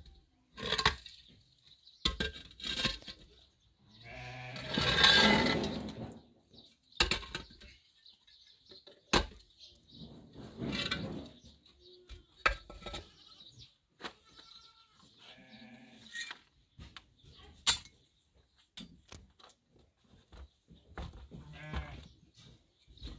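Livestock bleating: about four long, wavering calls spread through, the loudest about five seconds in, with scattered light knocks between them.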